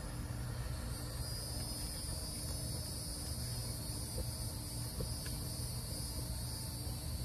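Steady rushing roar of a handheld butane torch firing up into the bottom of a charcoal chimney starter to light it. Insects sing in a steady high drone over it from about a second in.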